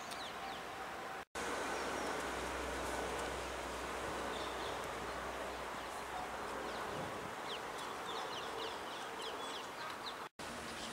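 Small birds chirping in short rising notes over a steady outdoor background hiss, with a low rumble in the first half. The sound cuts out completely for an instant twice.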